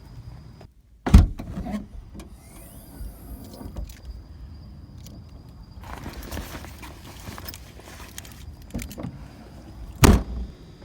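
Two loud, sharp thumps about nine seconds apart, the first about a second in and the second near the end, with a low rumble and a stretch of rustling noise between them.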